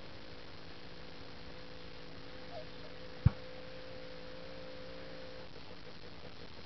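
A steady low hum with a single sharp click about halfway through, and a faint short call a little before the click.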